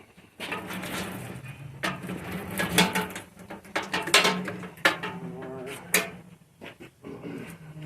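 Metal tools and parts clanking and rattling, with several sharp knocks, over a low steady hum.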